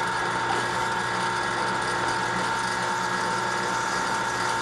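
Drill press running steadily, its motor and drive giving a constant whirring hum with a few steady tones, while a 3/8-inch bit is fed down into the end of a wooden handle blank.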